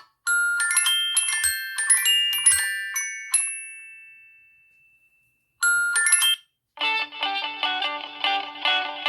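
LG V30 ringtones: a bright chime melody of bell-like notes rings out and fades away about five seconds in. A short burst of it starts again and is cut off, then a different, busier ringtone melody begins near the end.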